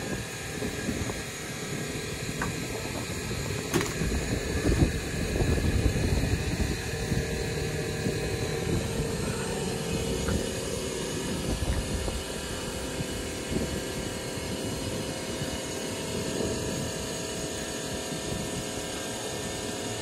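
Steady mechanical drone with a low, uneven rumble under it and a single sharp metallic click about four seconds in.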